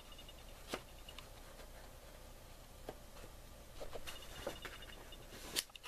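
Faint handling noise close to the microphone: a few soft taps and light rustling.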